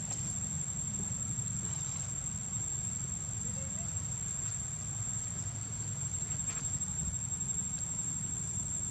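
Insects droning steadily on one high pitch, over a constant low rumble.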